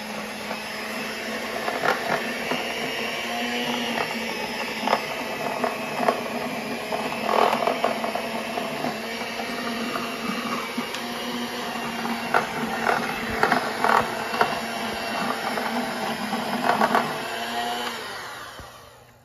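Electric hand mixer running steadily, its beaters churning through the stringy pulp and seeds inside a hollow pumpkin, with irregular clacks throughout. The motor winds down and stops at the very end.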